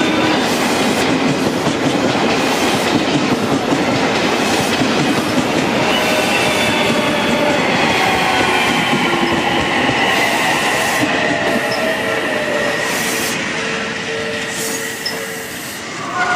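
Odakyu electric train running past at close range, its wheels clattering steadily over the rail joints. In the second half a faint high whine slowly falls in pitch.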